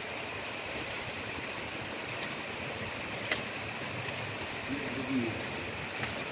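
Dry branches and twigs being handled and snapped: a few sharp cracks, the loudest about three seconds in, over a steady rushing background noise.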